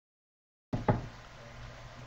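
Dead digital silence while the conference microphone audio is cut off, then the line abruptly comes back about three-quarters of a second in with a single sharp knock, followed by a faint steady hum and hiss of an open microphone.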